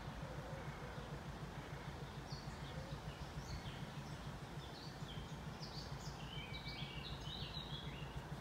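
An engine idling, a steady low rumble with an even pulse. From about two and a half seconds in, a small bird chirps rapid short notes, growing busier near the end.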